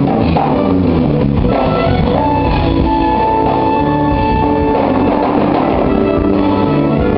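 Live jazz-rock band playing: electric guitar over a busy drum kit. A single high note is held for a couple of seconds in the middle.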